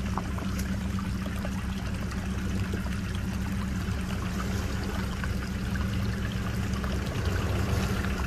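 Off-road vehicle engine running steadily at low revs as it crawls along, over a steady hiss with scattered small clicks and crackles.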